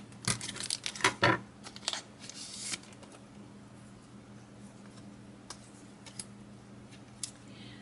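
Scissors cutting open a Pokémon booster pack wrapper: a quick run of sharp snips in the first second and a half, then a short rustle and a few faint clicks.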